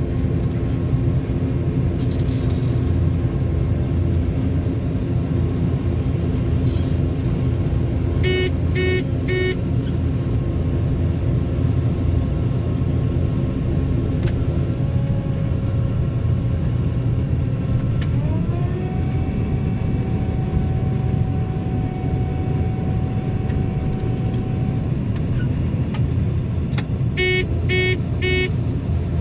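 Farm machinery engines run steadily at working load while a combine unloads corn into a wagon. The sound is heard from close by, most likely from a cab. A quick triple beep sounds twice, about eight seconds in and near the end, and a faint whine steps up in pitch about two-thirds of the way through.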